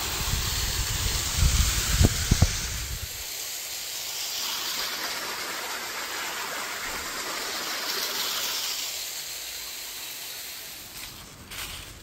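Hot-spring water pouring down a small rock waterfall into a stone pool, a steady rushing. In the first three seconds there is a low rumble with a couple of knocks over it, and the rushing fades near the end.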